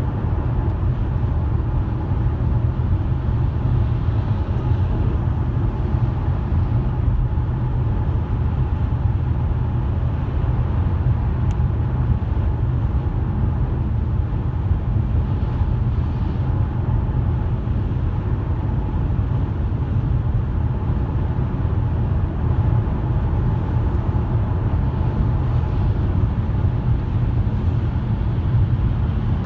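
Car driving at a steady pace: continuous low engine and tyre rumble with no breaks or changes.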